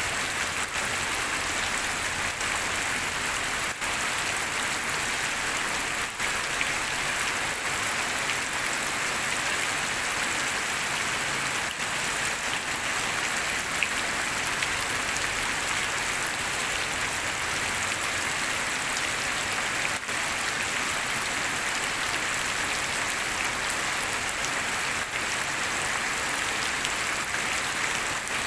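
Heavy rain pouring steadily, splashing onto standing water on the ground.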